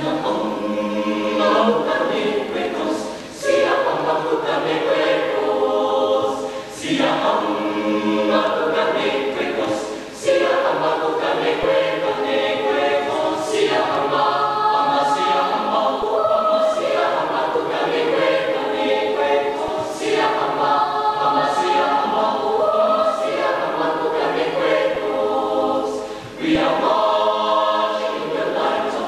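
A choir singing, starting right at the beginning, with brief breaks between phrases.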